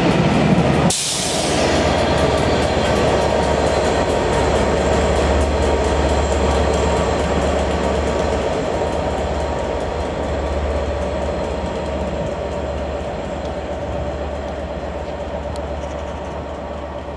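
Passenger coaches rolling past on the rails, with the tail of the train going by about a second in. After that, a steady low rumble of the train, with its diesel locomotive at the rear, and wheel noise that fades slowly as it draws away.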